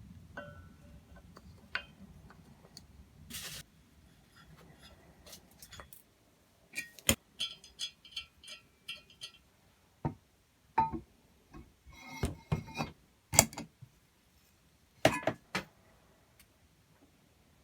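Metal parts clinking and knocking as they are handled, a series of sharp irregular clicks and knocks, some ringing briefly.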